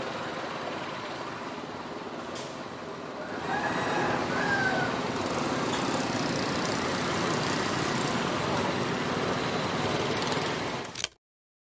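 Busy street traffic: motorbike engines running steadily, with a single sharp click a couple of seconds in. The sound cuts off abruptly near the end.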